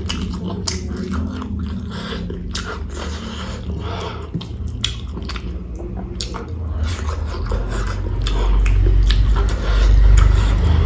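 Close-miked chewing of rice and potato-and-cauliflower curry: many short crunchy clicks and wet mouth sounds. A low rumble grows louder near the end.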